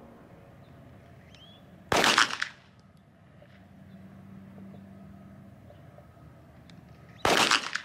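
Two pistol shots from a Walther PDP, about five seconds apart, each a sharp report that dies away within about half a second.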